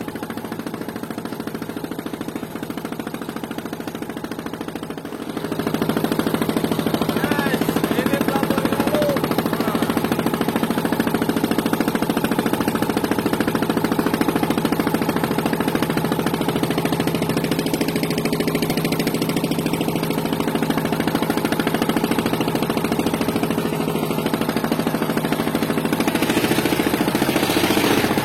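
An engine running steadily, getting louder about five and a half seconds in and holding that level.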